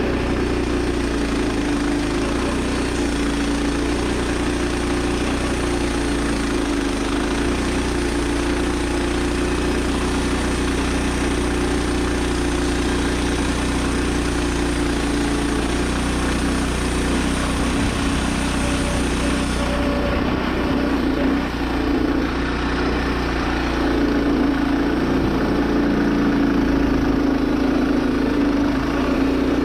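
Woodland Mills 122 portable bandsaw mill running steadily, its small gas engine driving the blade through a cherry log. Its high hiss drops away about two-thirds of the way through while the engine keeps running.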